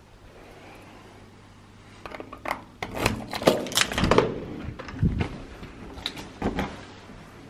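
A string of irregular sharp clicks and knocks, starting about two seconds in after a quiet low hum.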